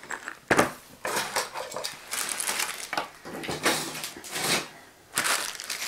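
Small plastic bags of water-cooling fittings and a coil of clear tubing being picked up and cleared off a wooden table: plastic rustling with irregular clinks and knocks of hard parts, the sharpest knock about half a second in.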